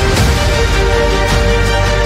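Electronic ambient music track: long held chords over a steady deep bass, with occasional sharp percussion hits.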